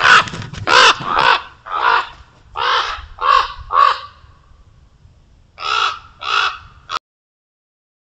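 Common ravens calling with loud, harsh caws, about ten calls in two bursts with a short pause between. The calling cuts off abruptly near the end.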